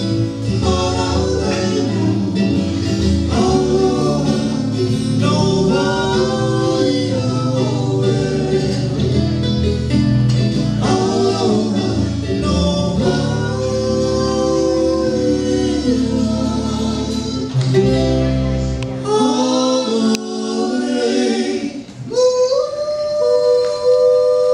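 Live Hawaiian band music: singing with electric bass, ukuleles and guitar accompanying a hula. Near the end the bass drops out and a long held note carries on.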